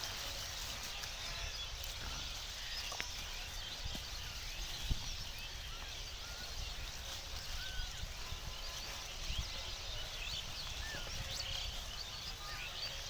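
Outdoor field ambience: scattered short bird chirps over a steady low rumble and hiss, with a single sharp knock about five seconds in.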